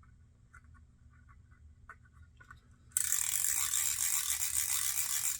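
Old Weber Water Witch fishing reel, freshly oiled, being worked: a few faint clicks, then about three seconds in a sudden loud continuous ratcheting buzz as the spool spins fast. It is the reel's sticky mechanism now turning freely.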